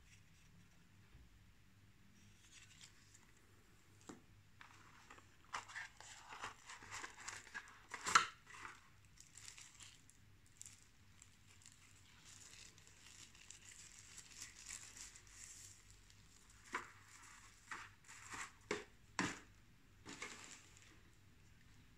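Hands handling a plastic hair clipper and its clip-on guide comb, with the motor off. Fingers rub and rustle on the plastic, with a few sharp plastic clicks: the loudest about eight seconds in, and a quick cluster near the end as the comb's length slider is worked.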